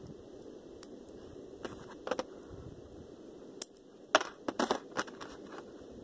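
Packaging and small parts being handled: a few sharp clicks and crinkles, clustered about four to five seconds in, over a steady low hum.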